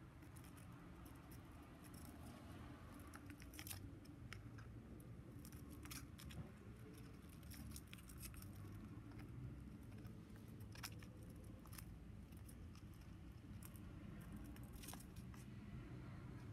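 Faint, irregular clicks and taps of a budgerigar's feet and beak on an empty cardboard toilet-roll tube, over a low steady room hum.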